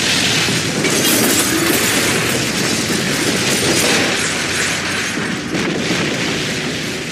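Explosion sound effects: a dense, continuous booming and crashing that fades away near the end.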